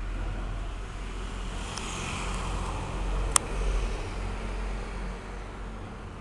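Road traffic: a steady low rumble with a passing vehicle swelling and fading between about one and a half and four seconds in, and a single sharp click in the middle.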